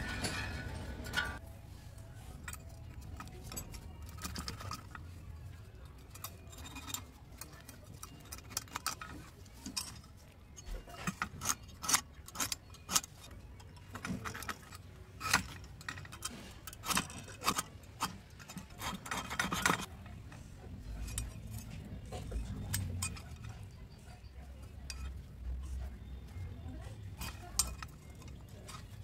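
Irregular light metallic clicks and clinks with some scratching, thickest in the middle: a steel rule and a scriber being set down and drawn across a rusty steel plate while it is marked out.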